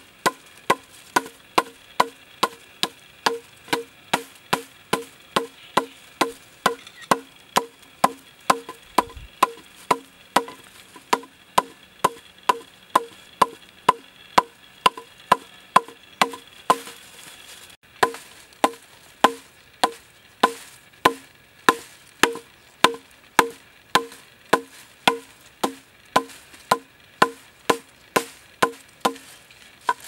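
Hammer striking bamboo in a steady rhythm, nearly two hollow, woody knocks a second, with a short break a little past halfway.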